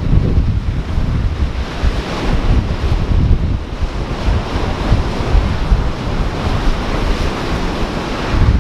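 Surf washing against the shore with wind buffeting the microphone. It is a steady noisy rush with a heavy low rumble that swells and drops in gusts.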